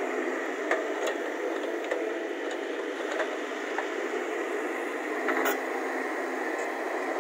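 JCB JS140 tracked excavator's diesel engine running under load as it digs and swings soil, heard as a steady thin hiss with several sharp clanks, the loudest about five seconds in.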